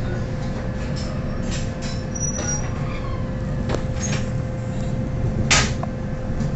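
Passenger train coach running, heard from inside: a steady low rumble broken by irregular sharp clacks of the wheels over rail joints and points. The loudest clack comes about five and a half seconds in.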